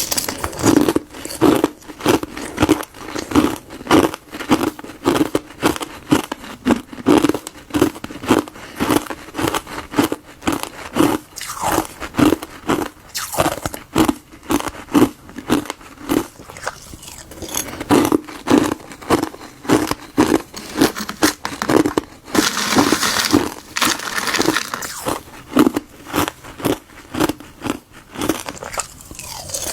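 Chunks of frozen tartary buckwheat and gardenia tea ice being bitten and crunched in a steady run, a couple of crunches a second, with a longer grainy crunch about three-quarters of the way through.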